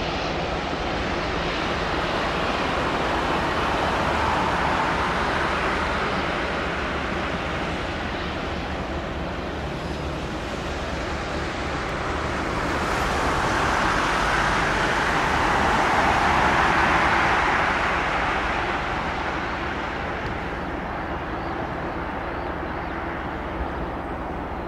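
Boeing 757 freighter's jet engines running at taxi power: a steady rushing noise that swells and fades twice, a little about four seconds in and more strongly around sixteen to seventeen seconds.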